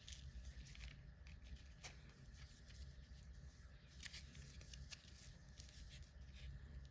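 Faint rustling and small clicks of hands handling skeins of metallic embroidery thread and their packaging, with a few sharper ticks about 2, 4 and 5 seconds in.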